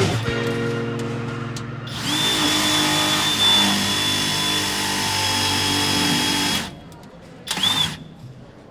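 Power drill running: a steady high whine for about five seconds that cuts off abruptly, then a short trigger burst about a second later.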